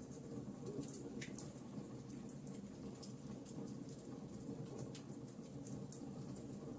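Wood fire in a fireplace crackling: irregular small snaps and pops, a couple of them louder, over a low steady rush of the flames.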